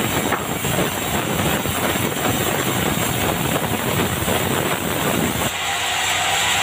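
Band sawmill running while sawing dry bengkirai (yellow balau) timber: a dense, steady mechanical rattle and hiss. About five and a half seconds in, the low rumble drops away and a brighter, higher hiss takes over.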